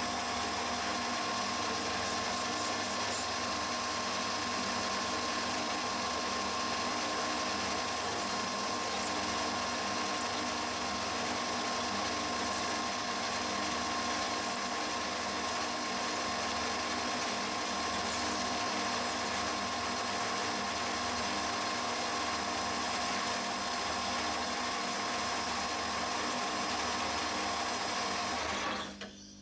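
Metal lathe running steadily with a whine from its drive, as a rear-mounted parting tool cuts off an aluminium disc under a trickle of coolant; the cut runs smoothly without blade flutter. The sound cuts off just before the end.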